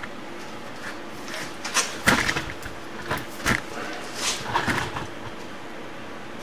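12-volt DC electric motor driving a worm-gear reducer, running with a steady hum. Irregular metallic knocks and clanks come in over it from about a second in until near the end.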